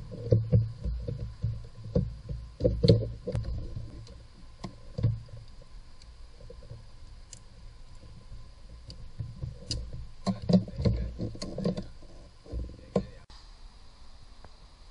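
Hand work in a car's engine bay: irregular knocks, clicks and rustles of plastic parts, hoses and an electrical connector being handled and pried with a screwdriver. The handling comes in two busy stretches, at the start and again about ten seconds in.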